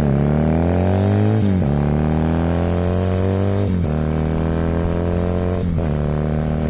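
Warmed-up motorcycle engine accelerating hard through the gears, choke off. Its pitch climbs, then drops sharply three times as it shifts up: about one and a half, four and six seconds in. It is running cleanly.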